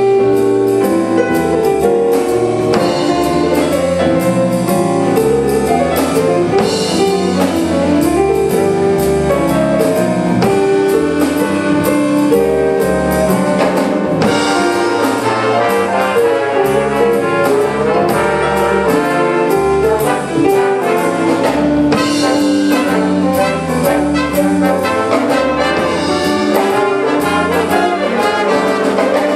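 Live wind band playing a jazzy arrangement: trumpets, trombones and saxophones carry held notes over a drum kit keeping a steady beat.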